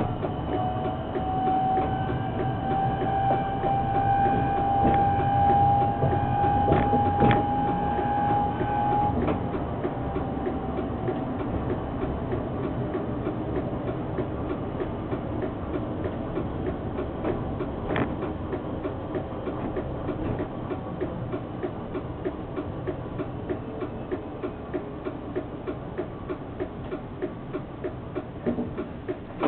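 Škoda 03T Anitra tram moving off in the dark. Its traction drive whines in a tone that slowly rises for the first several seconds as it gathers speed, then fades under the steady running rumble. A few sharp clicks, then regular ticking about twice a second, come through in the second half.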